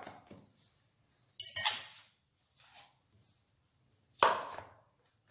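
Kitchen clatter: a ringing metallic clink about one and a half seconds in, then a single sharp knock near the end as the metal cake pan is handled on the stone counter.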